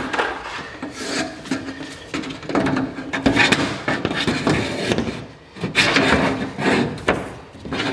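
Orange-sheathed electrical cable being pulled through a plastic grommet in a steel wall stud: a run of irregular scraping and rustling strokes as the cable sheath rubs through the hole.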